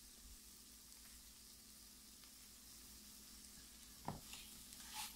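Faint sizzling of sliced bell peppers, onion and celery frying in a pan. About four seconds in there is a single knock as a silicone spatula meets the pan, then light scraping as it begins to stir.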